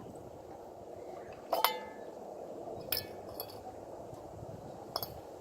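Metal ceiling fan parts clinking against each other as they are handled and set down: a ringing clink about a second and a half in, then short, sharper clinks near three seconds and again near five seconds.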